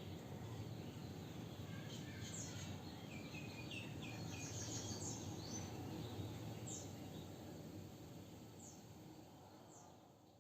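Small birds chirping in short, falling notes, scattered a few at a time over a steady low background rumble; the whole sound fades out near the end.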